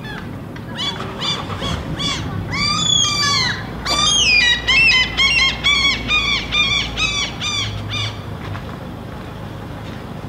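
A bird calling: a run of clear, ringing notes, each rising and falling in pitch, about three a second, starting about a second in and stopping near the end.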